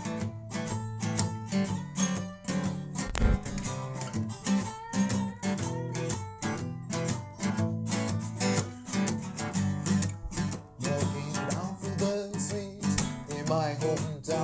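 Blues band playing an instrumental passage, with strummed guitar over a steady bass line; a wavering lead melody comes in near the end.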